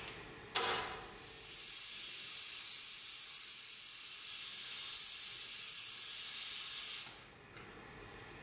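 Hand-held gas torch: a sharp pop about half a second in as the flame catches, then the steady hiss of the flame for about six seconds while it heats a steel socket-head screw to red heat, cut off near the end as the torch is shut off.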